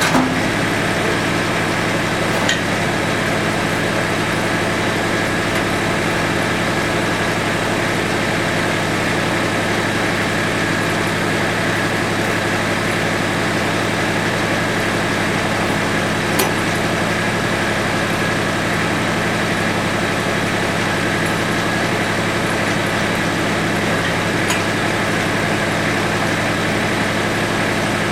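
Mahindra Max 24 sub-compact tractor's diesel engine idling steadily, with a few light clicks over it.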